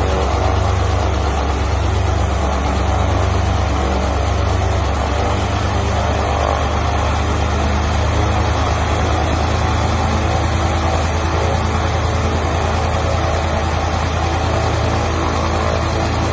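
Automotive turbo diesel engine, converted for aircraft use, running steadily and turning the propeller of a homebuilt floatplane through a gear-reduction drive.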